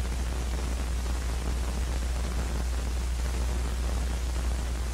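Steady hiss and low hum of an old film soundtrack, with no other sound.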